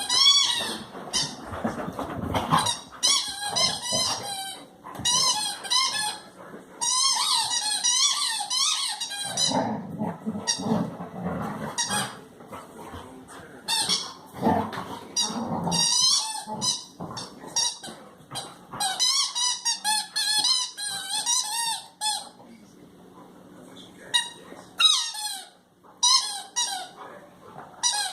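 Petstages Big Squeak dog toy squeaking as Labrador puppies chew and squeeze it. The squeaks come in runs of quick, wavering squeals with pauses between them, and there is some low scuffling and thumping in the middle stretch.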